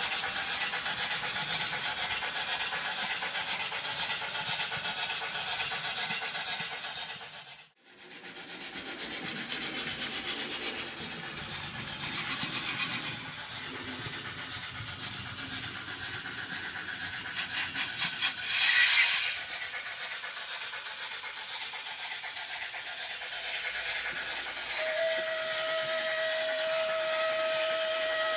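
Digital sound of a Märklin model SBB steam locomotive: running and steam-hiss effects, a short sharp blast of steam about two-thirds through, and a long, steady steam whistle near the end.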